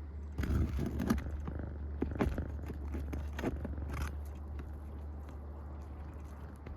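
Scraping and sharp clicks of a tool prying under asphalt roof shingles to work the nails loose, busiest in the first four seconds and quieter after, over a steady low hum.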